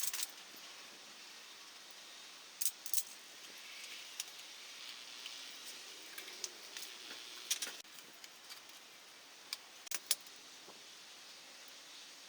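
Small metal parts being handled: a few sharp, light metallic clinks and jingles, scattered over a faint steady hiss.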